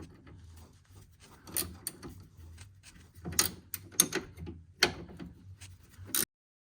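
Hand wrenches tightening a sway bar link nut: irregular metallic clicks and knocks of a ratcheting gear wrench and an open-end wrench on the nut, cutting off suddenly near the end.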